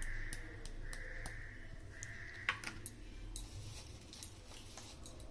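Faint, light clicks and taps of a spoon putting turmeric powder into a steel bowl of flour-coated chicken, the sharpest click about halfway through. For the first half they sit over a soft hiss that pulses about once a second.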